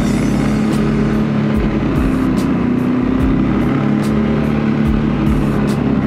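CFMOTO CForce 600 ATV's single-cylinder engine running at a steady, even speed while the quad rolls along, with a few sharp knocks mixed in.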